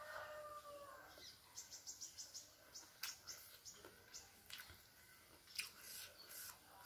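Faint rooster crow trailing off about a second in, followed by faint quick runs of high small-bird chirps and a few soft clicks.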